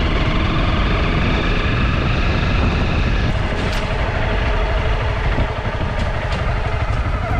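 Honda CRF250 Rally's single-cylinder four-stroke engine running steadily as the bike rides along a dirt track, with a few faint clicks over it.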